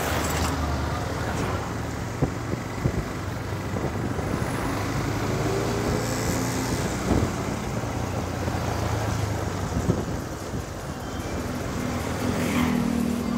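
Motorcycle engine running at low speed in slow city traffic, heard from the rider's seat, with the noise of surrounding cars and vans. A few short knocks come through along the way.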